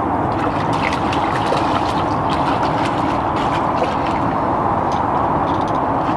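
Small splashes and drips of water as a perch is netted and lifted in a landing net at the canal edge, over a steady background noise.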